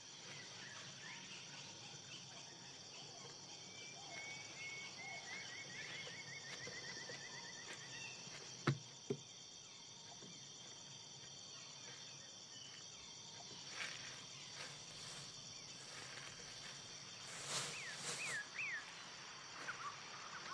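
Film soundtrack of quiet rainforest ambience: a steady high insect drone, with a bird's rapid trill a few seconds in and quick rising bird chirps near the end. Two sharp clicks come about halfway through.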